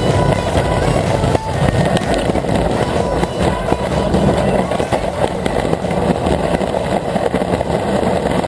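Shopping cart's wheels rattling and rumbling over city pavement as the cart is hauled along at a run, picked up through a camera strapped to the cart's front.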